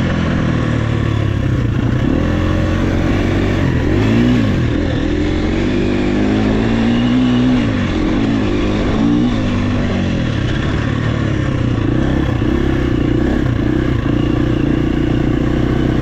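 Enduro motorcycle engine running hard off-road, its pitch rising and falling repeatedly as the throttle is opened and closed, then holding steadier over the last several seconds.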